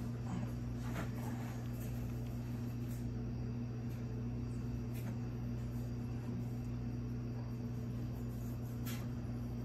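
A steady low hum with a few faint clicks scattered through it.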